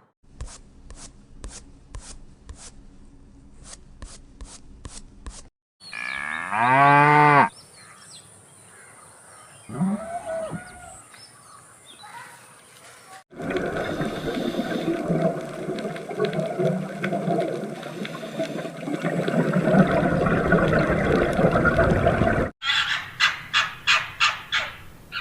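A string of different farm animal calls and noises cut one after another. The loudest is a long pitched call that falls in pitch, about six seconds in. It is followed by a long, dense, noisy stretch and a quick run of short repeated calls near the end.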